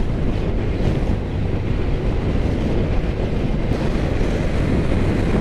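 Steady wind rushing over the microphone on a motorcycle at about 120 km/h. Under it is the low road and engine noise of a 2018 Aprilia RSV4 RR's V4 running on its stock exhaust, which makes it quiet.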